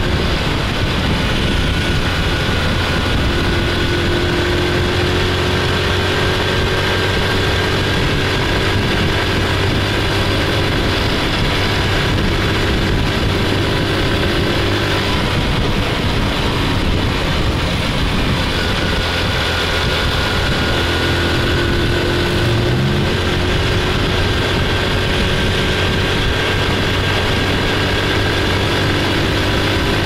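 Honda Super Cub C50's small 49 cc four-stroke single-cylinder engine running under way at a steady cruising pace. Its steady hum drops away for a few seconds near the middle, then picks up again.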